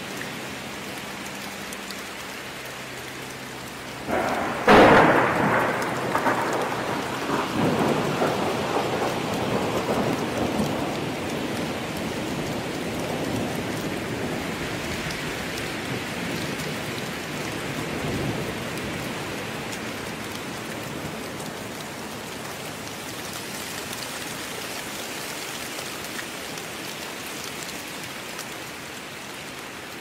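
Thunderstorm: steady heavy rain with a sudden loud crack of thunder about five seconds in that rolls on for several seconds, and a fainter rumble later.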